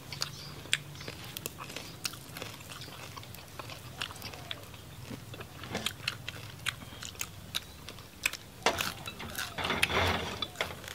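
Close-up chewing and crunching of crispy roast pork belly: irregular crisp crunches and clicks, with a denser run of crunching near the end.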